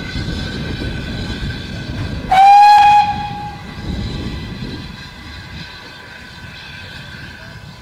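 A steam locomotive whistle gives one short blast about two seconds in, sliding up in pitch as it opens and then holding steady, over a low rumble.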